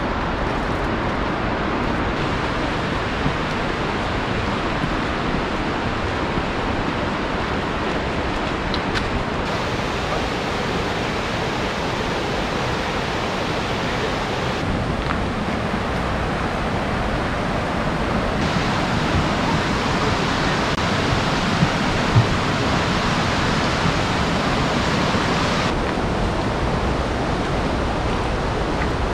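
Steady rushing roar of water from the Hidden Falls cascade and its rocky creek, its tone shifting slightly at several cuts. There are a couple of light knocks about three-quarters of the way through.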